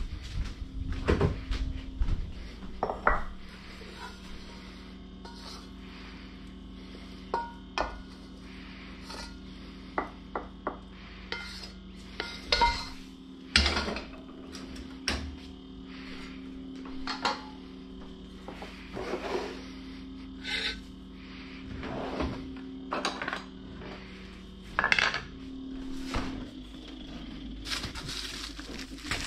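Kitchen clatter from a wok, a metal spatula and other utensils: scattered knocks, clinks and scrapes at irregular intervals over a steady low hum.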